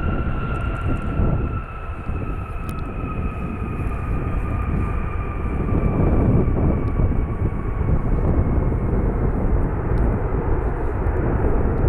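United Boeing 757-300 jet engines on the landing rollout: a steady rumble with a thin whine that slowly falls in pitch. The rumble grows louder about halfway through.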